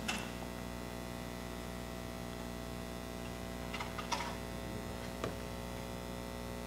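Steady electrical mains hum with several faint tones, broken by a few faint, short clicks.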